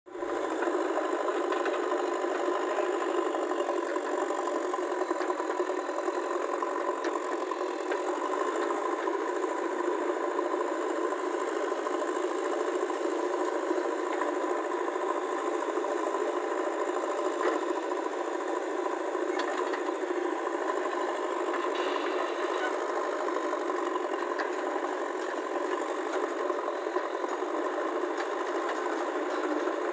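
Swaraj 744 FE tractor's diesel engine running steadily, its pitch hardly changing.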